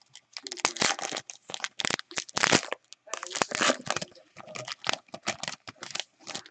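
The foil wrapper of a trading-card pack crinkling and tearing as it is opened and handled, in quick, irregular crackles.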